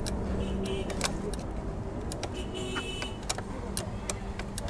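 Steady vehicle engine rumble, with scattered sharp metallic clicks of tools tightening a motorcycle's exhaust fitting.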